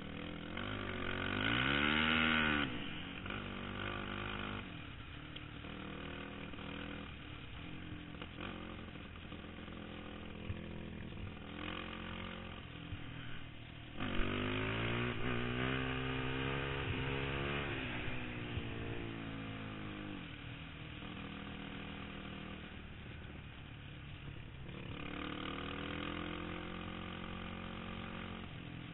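Single-cylinder four-stroke sport quad engine under way at speed, its pitch swinging up and down as the throttle is worked and gears change. It climbs and falls sharply about two seconds in, jumps suddenly louder around halfway and then sinks in pitch, and swells again near the end.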